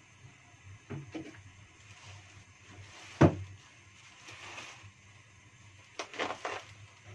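Knocks and clatter of kitchen things being handled: two knocks about a second in, one loud sharp knock about three seconds in, and a quick run of knocks near the end. Under them is the low steady rumble of a gas burner heating an empty non-stick wok.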